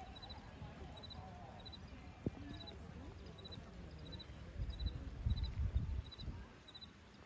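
Faint open-air ambience with distant horse hoofbeats from a horse cantering on sand arena footing. There is one sharp click a little over two seconds in, and a run of low thumps a little under five seconds in that lasts about a second and a half.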